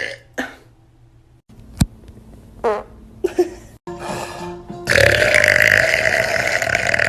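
A girl burping: a few short sounds early on, then one long, loud burp held at a steady pitch for about three seconds, starting about five seconds in.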